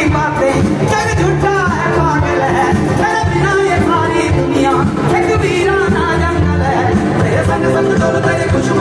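Live band music with a lead singer's melismatic, gliding vocal line, played loud through a concert PA system.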